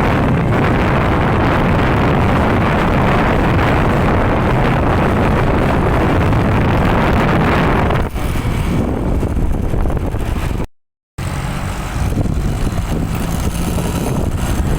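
Road-vehicle noise with wind rushing over the microphone, loud and steady, easing slightly partway through and broken by a sudden half-second dropout to silence about 11 seconds in. No telolet horn melody is heard.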